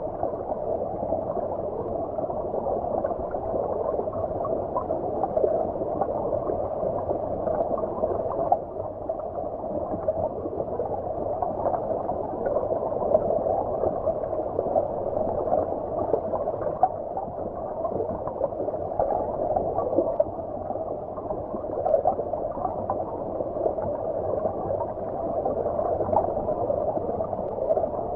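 Flowing stream water heard from under the surface: a steady, muffled rush with small irregular bubbling flickers and no high sounds.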